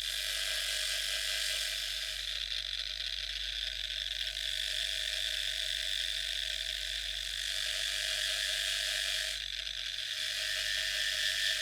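A small power tool or machine running steadily, giving an even hissing buzz, with a brief dip in level about ten seconds in.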